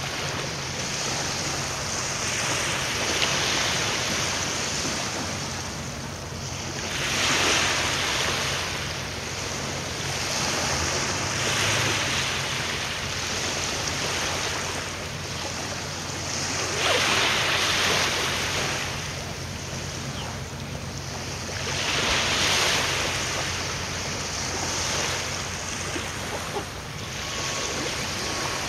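Small waves washing in, swelling every few seconds, with wind on the microphone and a faint low steady hum underneath.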